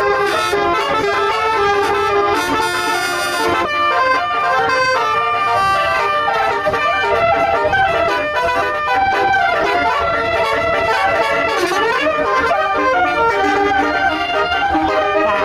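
Basuri, the Indonesian multi-tone musical bus horn, playing a melody in held, brassy notes that change step by step, with a short slide down and back up about twelve seconds in.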